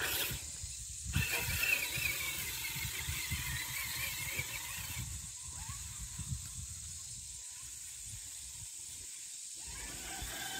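Redcat Gen 7 RC rock crawler's electric motor and gears whining, the pitch wavering up and down with the throttle and fading about halfway through. Irregular low rumbling runs underneath.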